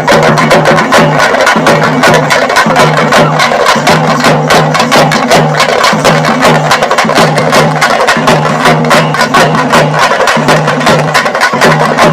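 Music with fast, steady drumming: rapid, even drumbeats over a pulsing low tone.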